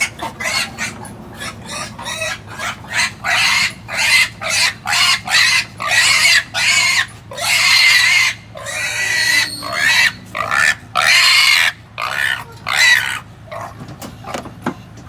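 Pig squealing over and over in a rapid run of loud, shrill cries while being handled. The cries thin out and stop near the end.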